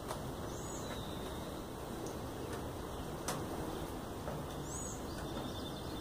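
Two short, high bird chirps about four seconds apart over a steady background hiss, with a couple of faint clicks.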